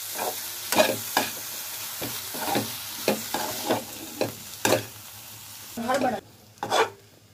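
A metal slotted spoon scrapes and clinks against a metal kadhai, stirring a masala of onion, spices and karela peel and seed as it fries, with a light sizzle underneath. The stirring strokes come irregularly and die away near the end.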